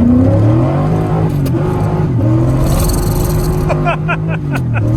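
LS V8 engine of a Pontiac Fiero swap pulling hard under throttle, heard from inside the car. The revs climb, dip shortly before the end and climb again.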